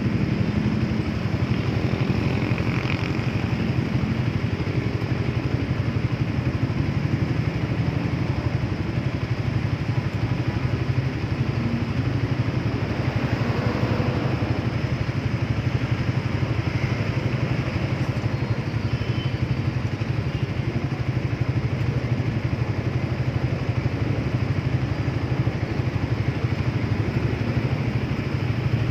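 Motorcycle engine running steadily at an even speed, with no revving, under a constant rush of noise.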